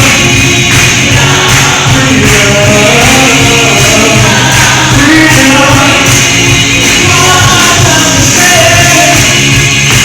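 Live gospel song with a lead singer and voices singing along over a band with a steady beat, in a large, reverberant room.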